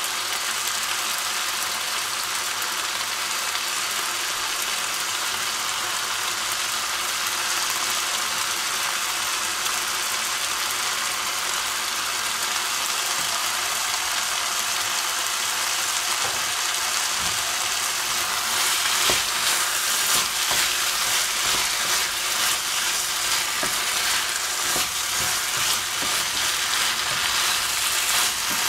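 Chopped vegetables and tomato paste frying in a hot wok pan, a steady sizzle. In the last third, a wooden spatula stirs the pan and the sizzle comes in uneven surges with light scraping.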